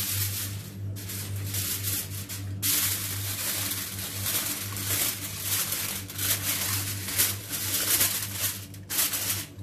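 Sheet of aluminium foil crinkling and rustling as it is pressed and crimped by hand over a metal baking tray. The crinkling comes in bouts, with brief pauses about one and three seconds in and again near the end, over a steady low hum.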